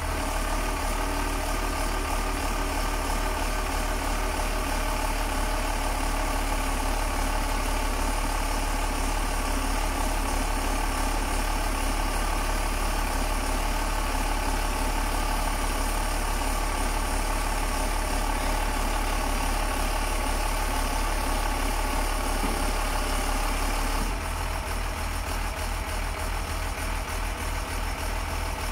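Diesel engine of a truck carrying a Palfinger SPK23500 knuckle-boom crane, running steadily while it powers the crane's hydraulics as the boom moves. The sound changes and gets slightly quieter about four-fifths of the way through.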